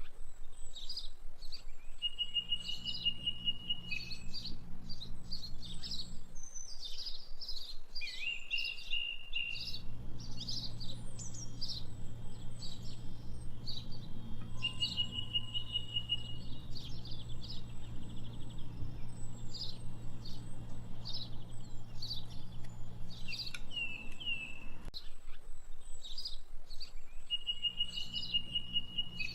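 Songbirds chirping and twittering, with short even trills repeating every several seconds, over a steady low hum that drops out twice for a few seconds.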